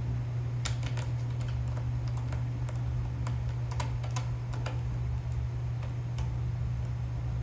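Scattered small clicks and taps of parts being handled as a threaded part, its threads freshly coated with blue Loctite, is fitted back into an airsoft gun, over a steady low hum.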